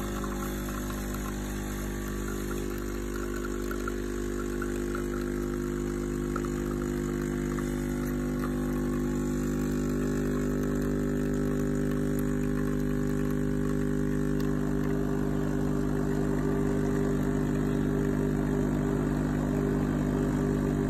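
Solis espresso machine's pump humming steadily while it pulls a shot at about 8 bar of brew pressure. The hum grows a little louder partway through.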